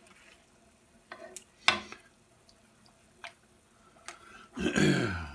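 Metal tongs clicking and knocking against a frying pan as pieces of chicken are turned, a few separate sharp clicks. Near the end, a brief sound of a man's voice falling in pitch.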